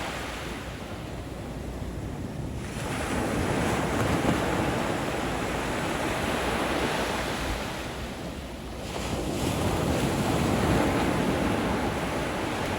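Ocean waves breaking and washing in, swelling up about three seconds in and again about nine seconds in, with wind rumbling on the microphone.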